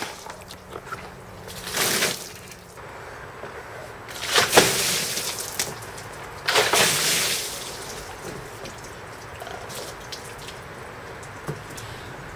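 Buckets of ice water thrown over an outdoor intercom unit on a table, splashing down in three loud dousings about two, four and a half and six and a half seconds in, the middle one the loudest.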